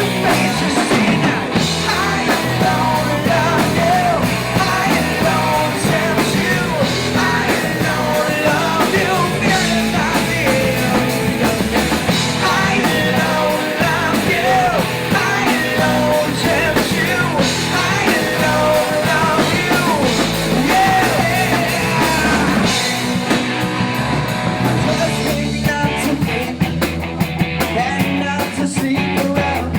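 Rock band playing a song, with singing over the instruments.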